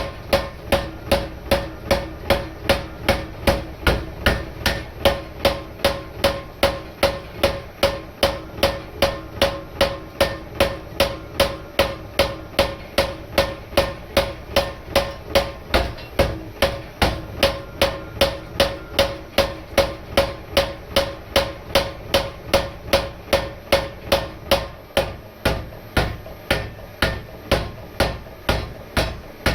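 Homebuilt 100 lb trip-style mechanical power hammer running steadily at about three blows a second, drawing out a hot 20 mm square steel bar. Each blow lands with a short metallic ring.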